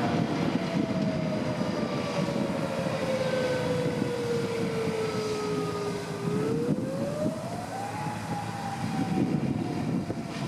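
Federal Signal 2001 DC mechanical warning siren sounding the attack signal. Its pitch falls slowly for about six seconds, rises over about two seconds, then begins to fall again.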